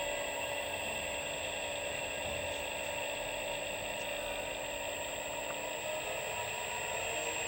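An electric motor is driven by a Siemens G110 frequency inverter on a test run, giving a steady electrical whine made of several tones, with a thin high whistle above it. Near the end, some tones begin to climb in pitch.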